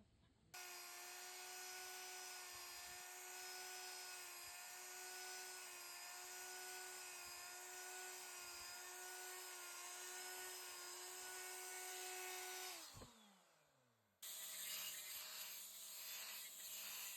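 High-speed motor of a wood carving tool running with a steady whine. About thirteen seconds in it is switched off and winds down, falling in pitch. About a second later it starts again at a lower pitch with a rougher, uneven sound.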